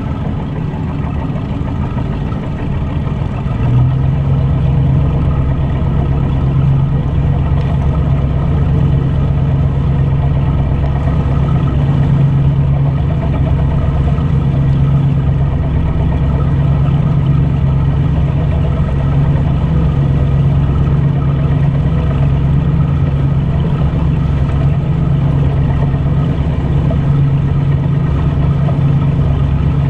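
Silverton cruiser's inboard engine running under way, a steady low drone whose hum steps up and grows louder about four seconds in. Water rushes and splashes along the hull.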